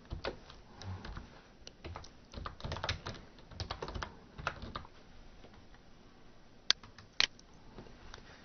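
Typing on a computer keyboard, a quick irregular run of key clicks, then two louder, sharper clicks about half a second apart about three-quarters of the way through.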